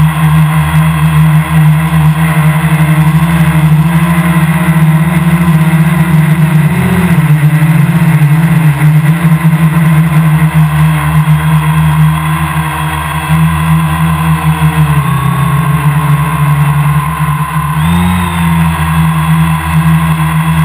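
Quadcopter's brushless motors and propellers whining steadily right beside the onboard camera. The pitch shifts a few times as the motor speeds change in flight.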